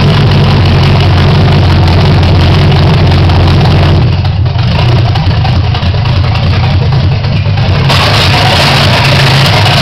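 Chevrolet 350 small-block V8 running for the first time on open Hedman headers with no mufflers: a loud, steady idle rumble, wavering for a few seconds in the middle.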